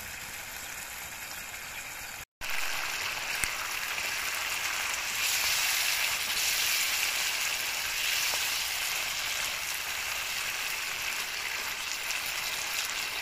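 Chicken feet in a thickening sweet soy and chilli sauce sizzling and bubbling in a frying pan over a wood fire, a steady hiss as the sauce reduces. The sound cuts out for a moment about two seconds in, then comes back a little louder.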